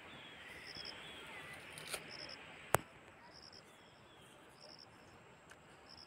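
Faint insects chirping in short repeated high-pitched pulses, with one sharp click a little before the middle.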